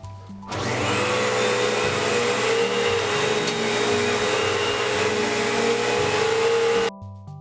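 Central vacuum cleaner running: a loud, steady rush of noise with a whine through it, starting abruptly about half a second in and cutting off suddenly near the end.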